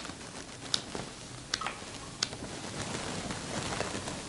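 Pages of a paperback book being leafed through by hand: a few short, faint paper ticks.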